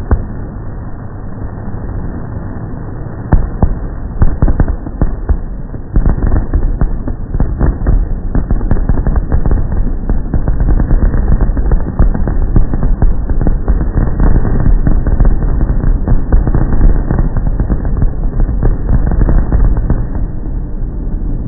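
Fireworks display: a rapid run of overlapping bangs and crackles over a steady low rumble, thickening into a dense barrage about six seconds in.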